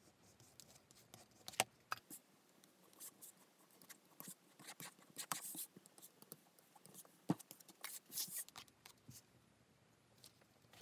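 Craft knife cutting along a curved line through a thick kraft-paper pattern sheet on a cutting mat: faint, short scraping strokes with a few sharp ticks. Paper rustles as the cut piece is handled near the end.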